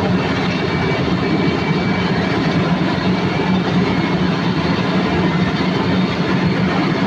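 Heavy road-paving machinery running steadily during asphalt laying: a continuous diesel drone with a low hum under a rough mechanical rumble.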